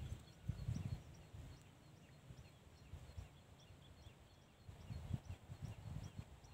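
Quiet outdoor ambience with a faint, high chirping that repeats evenly, about two to three short chirps a second. Low, uneven thumps on the microphone come about half a second in and again near the end.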